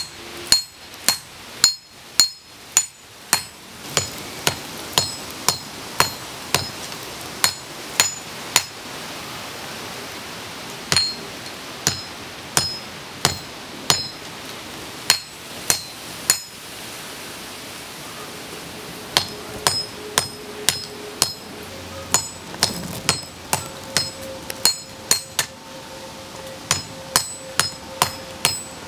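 Hand hammer forging red-hot steel from a farrier's rasp on an anvil, about two blows a second, each with a bright metallic ring. The blows pause briefly about ten seconds in and again a little past halfway.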